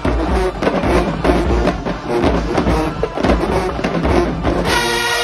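Marching band playing: the percussion section pounds out a steady beat with heavy bass drum, and near the end the brass section comes in with a loud held chord.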